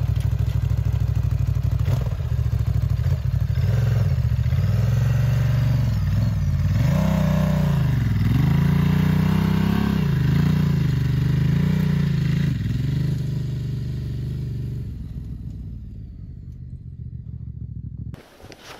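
Adventure motorcycle's engine revving under load, its pitch rising and dipping over and over for several seconds. It then settles lower and cuts off abruptly shortly before the end.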